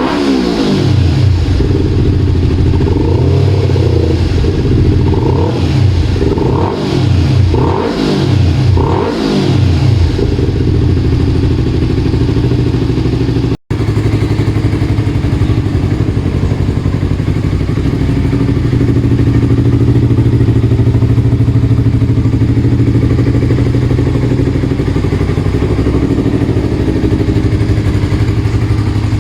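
Yamaha R25's parallel-twin engine breathing through a Comm Pro aftermarket exhaust with a 63 mm inlet. It is blipped through a series of quick revs over the first ten seconds or so, then settles into a steady idle.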